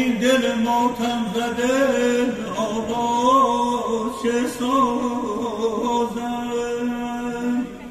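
A man singing Persian classical vocal (avaz) unaccompanied into a microphone: one long held phrase with ornamental wavering turns in the voice, breaking off near the end.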